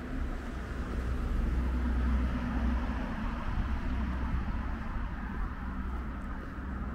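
Low rumble and road hiss of a passing vehicle. It swells to a peak about two seconds in, then slowly fades.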